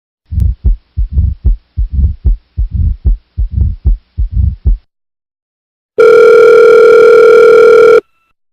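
Heartbeat sound effect: about eight low, paired lub-dub thumps. It is followed by a steady electronic beep tone, held for about two seconds and then cut off sharply.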